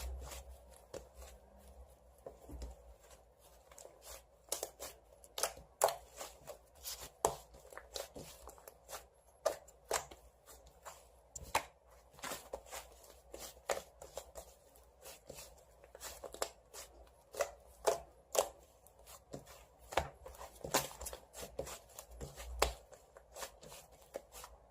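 A series of irregular sharp taps, one or two a second.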